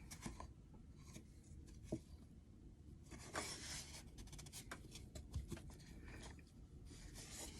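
Quiet handling of craft materials on a work surface: a few light taps and clicks, with short stretches of rubbing or scraping about three seconds in and again near the end.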